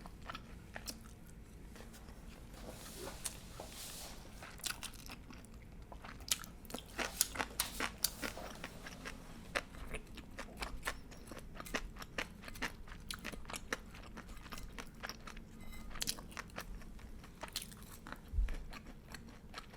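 Crunchy chewing of deep-fried karaage chicken, close to the microphone: clusters of sharp crunches as the crisp coating is bitten and chewed, densest in two stretches, a few seconds in and again near the end.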